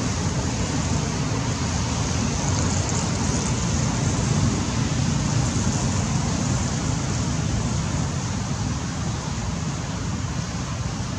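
Steady low rumbling noise with a fainter hiss above it, and no distinct calls or knocks.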